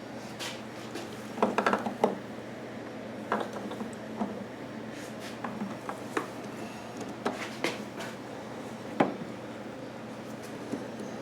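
Scattered small clicks, taps and knocks of hands working a rubber fuel hose and small hose clamp onto a fitting on a generator's fuel selector valve, with a sharp single click about nine seconds in.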